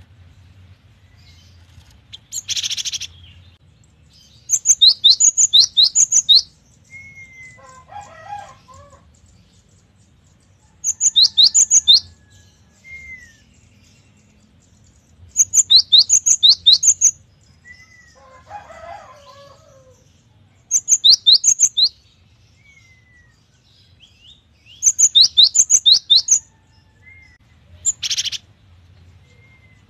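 Cinereous tit (gelatik batu) singing loud repeated phrases of rapid, quick-falling whistled notes, each phrase about a second long, about every five seconds. Two short harsh rasping notes come near the start and near the end, with softer low chatter between phrases.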